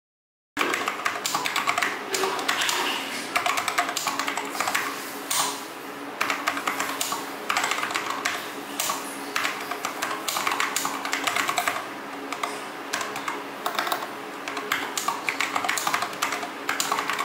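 Continuous fast typing on a Cooler Master SK622 60% low-profile mechanical keyboard with TTC red linear switches and ABS keycaps: a quick, irregular patter of keystrokes that begins about half a second in.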